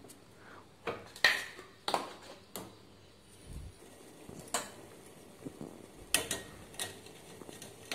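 A spoon clinking and scraping against a steel pan while thick, cooked-down tamarind pulp is stirred: several separate, short clinks spread out over a few seconds.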